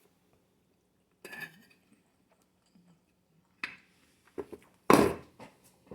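Dishes and cutlery clattering in a few separate bursts, with a louder knock about five seconds in.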